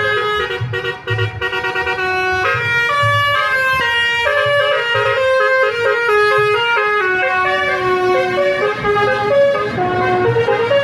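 A bus's basuri telolet horn, a multi-tone air horn, playing a quick melody of stepped, held notes without a break. A low pulsing runs beneath it.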